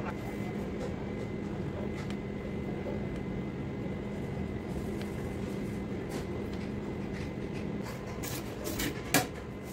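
Steady hum of kitchen machinery, with a low tone that stops near the end, then a few sharp clicks and one loud knock about nine seconds in.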